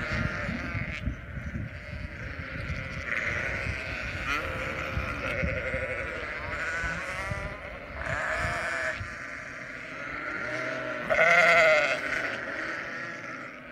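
A flock of sheep bleating: many overlapping calls, with the loudest a long bleat about eleven seconds in.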